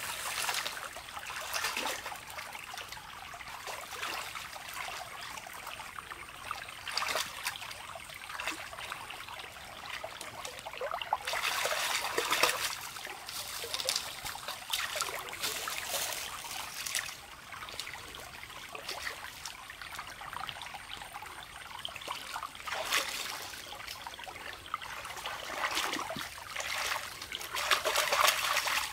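Hands splashing in shallow stream water while groping along the streambed, with the stream trickling. It comes in uneven spells, loudest about twelve seconds in and again near the end.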